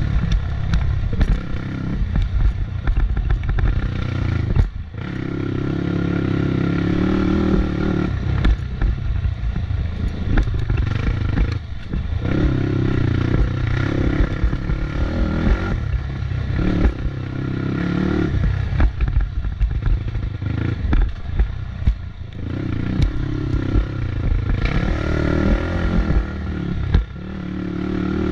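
Off-road motorcycle engine running hard under load, with the throttle cut briefly about five times before it pulls again.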